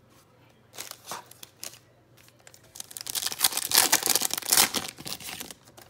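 Foil wrapper of a basketball trading-card pack handled with a few light rustles, then crinkling and tearing for about two seconds as it is ripped open by hand.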